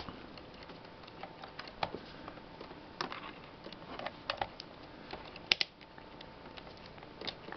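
Scattered light clicks and taps from handling a digital multimeter: its rotary selector dial clicking as it is turned and the test leads knocking, with a sharp double click about five and a half seconds in.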